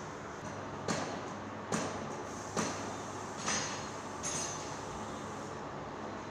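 Five sharp metallic clicks, a little under a second apart, from hand tools working on a motorcycle engine, over a steady background hum.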